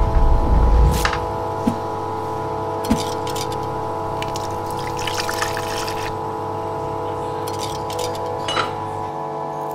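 A sustained, droning music chord. About halfway through, an espresso machine pours a shot into a cup with a hissing, crackling trickle, and a few light clicks and knocks of crockery come before and after it.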